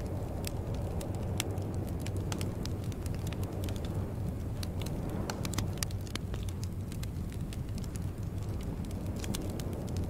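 Wood fire crackling in a fireplace: a steady low rumble with frequent sharp pops and snaps at irregular intervals.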